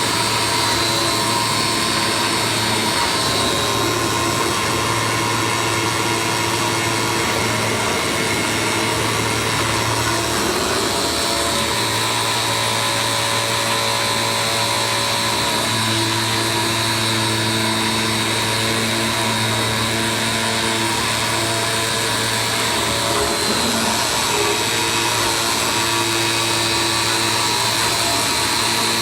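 AOKE DCZ70 flatbed digital cutter running: a steady mechanical whir and hum whose tones shift every few seconds as the machine's motions change.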